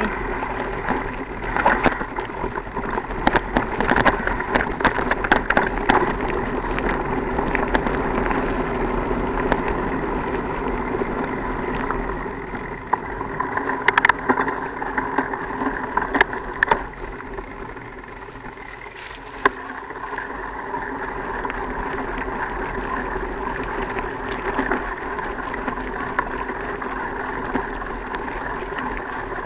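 Bicycle ridden along a rough dirt trail: steady rolling and wind noise with a steady hum. Sharp clattering knocks over rough ground come through the first several seconds and again about halfway through.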